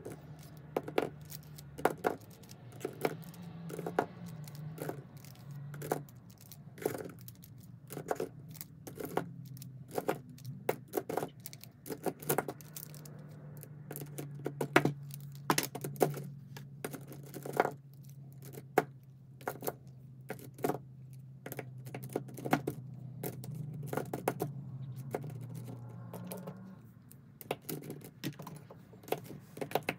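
Lip liner pencils clicking and clacking against one another as they are picked up, counted and set down one at a time, in sharp irregular taps about one or two a second.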